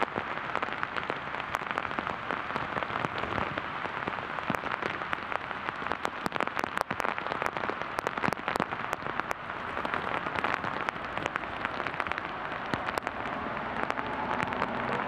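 Steady heavy rain falling, an even hiss with frequent sharp clicks of drops.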